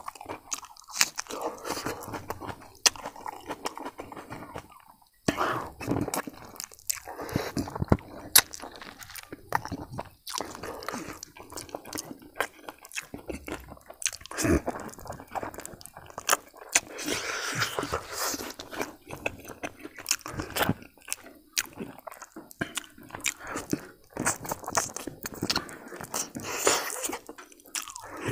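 Close-miked eating: a man chewing and smacking his lips on soft, pressure-cooked buffalo leg meat and rice. Many short wet clicks are broken by occasional crunchy bites.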